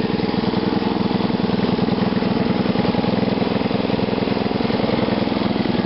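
Small single-cylinder OHC lawn mower engine fed through a GEET fuel reactor, running steadily at an even speed with a regular, unchanging firing beat.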